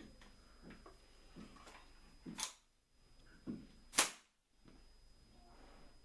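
A few faint knocks, then two sharp bangs about a second and a half apart, the second louder, each followed by a brief drop to near silence.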